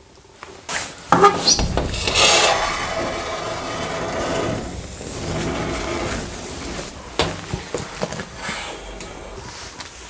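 Old wooden door scraping and rubbing as it is pushed open, with a few knocks, then scattered footsteps over debris and snow.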